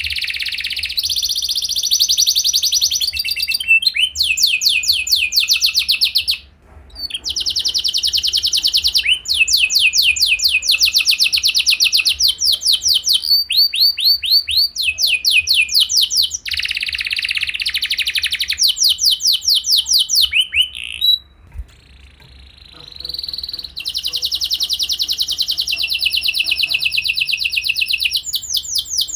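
Domestic canary singing a long song of fast trills, each phrase a quick run of repeated notes and a new trill every second or two. The song breaks off briefly about six seconds in and again around twenty-one seconds in.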